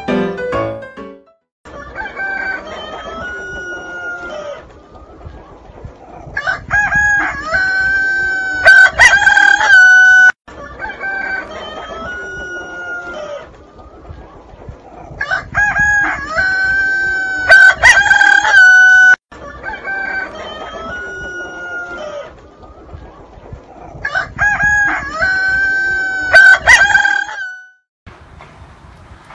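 Rooster crowing three times, each crow a long call held on one steady note, with shorter clucking calls between. The same sequence repeats about every nine seconds.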